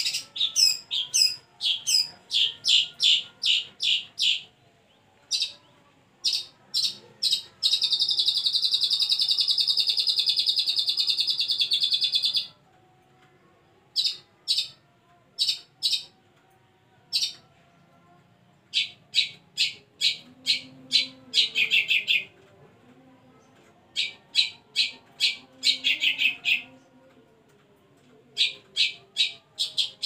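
Caged long-tailed shrike (cendet) singing: runs of sharp, rapid chirps at about three a second, broken from about eight seconds in by one steady, harsh trill lasting about five seconds, then more short bursts of chirps with brief pauses between them.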